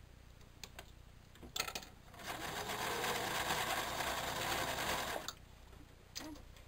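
Domestic electric sewing machine running a straight stitch through thick terry towel layers for about three seconds, starting about two seconds in and stopping abruptly. A few light clicks come before and after it.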